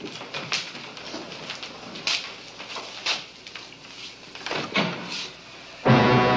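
Metal clicks and clanks of a submarine torpedo tube's breech door being unlatched and swung open. Near the end, a loud brass music sting cuts in.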